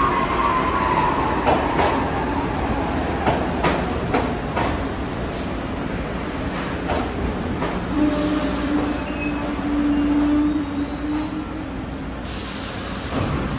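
New York City subway train running through the station, its electric motor whine falling in pitch over the first couple of seconds as it slows, and its wheels clicking over rail joints. A low steady hum sounds for about three seconds in the middle, and there is a short burst of air hissing near the end.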